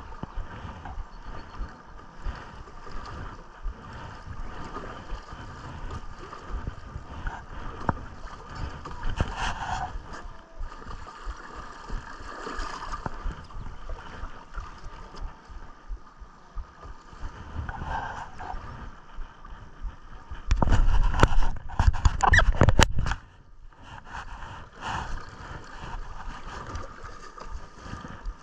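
Water gurgling and splashing around a kayak drifting down a river. About twenty seconds in, a loud rough burst with a deep rumble lasts about two and a half seconds and then cuts off.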